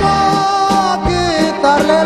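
Mexican norteño music: a man sings a long, bending held note over accordion and a bass line that steps in an even rhythm.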